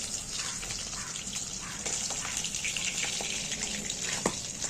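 Food frying in hot oil in a pan: a steady sizzling hiss with many small crackles, and a single short sharp tick about four seconds in.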